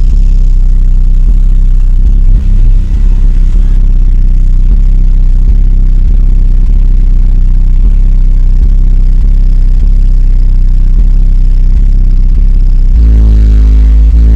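Extremely loud bass from a car audio system's subwoofers: a deep, steady bass drone strong enough to blow long hair up off the head. About 13 seconds in it switches to bass-heavy music with stepping notes.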